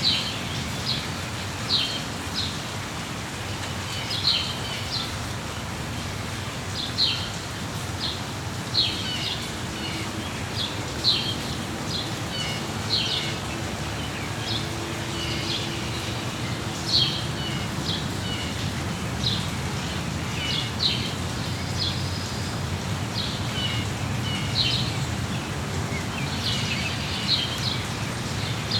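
Steady rain with small birds chirping over it: short high chirps, one every second or two.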